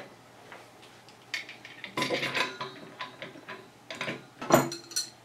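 Brass CO2 regulator clinking and knocking against the valve of an aluminium CO2 cylinder as it is fitted on by hand: a scatter of sharp metallic taps and short clatters, the loudest about four and a half seconds in.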